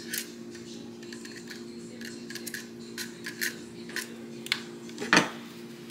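Kitchen food prep at the counter: irregular light clicks, taps and scratchy ticks from handling and cutting, with a stronger scrape about five seconds in. Under them runs a steady low appliance hum.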